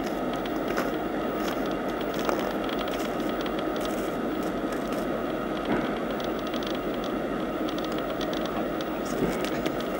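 Freight train rolling past at a distance: a steady rushing rumble of steel wheels on rail, with scattered faint clicks and ticks.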